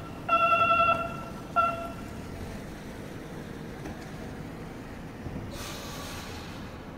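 Kagoshima City tram setting off: a bell rings in two short fluttering bursts in the first two seconds, then the tram's steady low running rumble, with a rush of air hiss about six seconds in.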